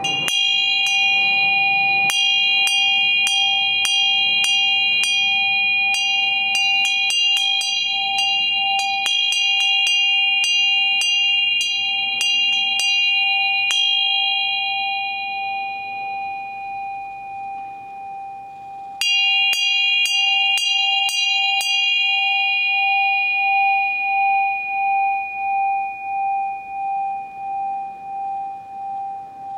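A bell struck, then tapped in quick runs of about two strikes a second, first for some twelve seconds and, after a pause, again briefly. Its ringing tone hangs on throughout, and near the end it fades with a slow pulsing wobble.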